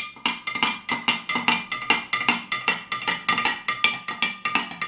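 Large spoon stirring salt into water in a jar, clinking rapidly against the jar's sides about four to five times a second, each clink ringing briefly.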